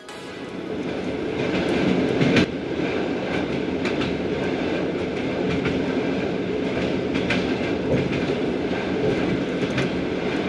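Trans-Mongolian passenger train running, heard from inside the carriage at the window: a steady rolling noise of wheels on rail that fades in over the first couple of seconds, with irregular clicks as the wheels pass rail joints.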